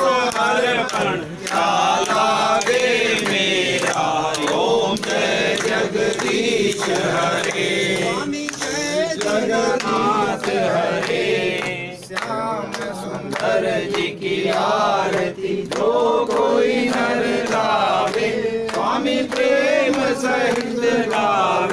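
A group of worshippers chanting Hindu mantras together, many voices overlapping in a steady unison chant.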